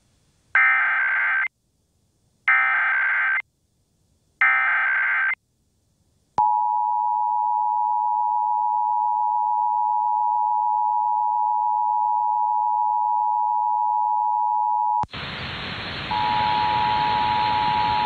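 Emergency Alert System signalling: three short screeching SAME data bursts about two seconds apart, then the steady two-tone attention signal (853 and 960 Hz) held for about eight seconds. Near the end a loud hiss cuts in, and the two-tone attention signal sounds again over it.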